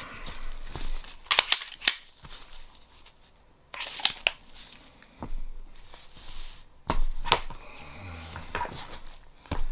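A series of sharp clicks and knocks from hard objects being handled on a hard surface: a quick cluster about a second and a half in, then single knocks near four seconds, around seven seconds and near the end.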